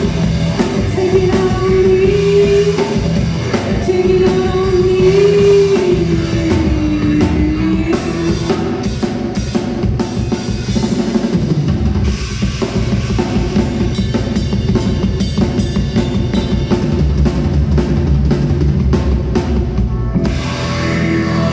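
Live rock band playing through a PA: drum kit, electric guitars, bass and keyboards, loud and continuous.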